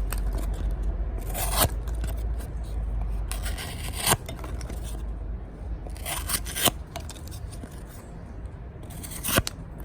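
A sharp knife blade slicing through thick cardboard in four short strokes, about two to three seconds apart. Each is a brief scrape ending in a sharp tick as the blade cuts through.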